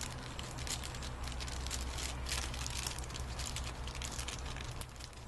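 Hand work on a garage door opener's cover: irregular crackling clicks and scrapes of small parts being handled, over a steady low hum.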